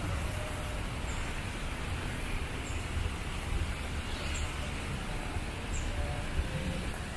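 Steady outdoor background noise: a low rumble under an even hiss, with faint short tones near the end.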